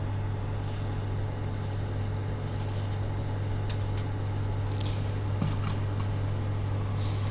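Microwave oven running, a steady low electrical hum while it heats a pasta box, with a few faint ticks in the second half.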